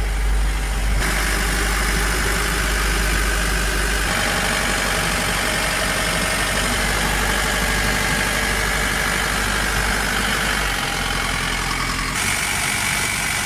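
Mahindra Bolero pickup's engine idling steadily.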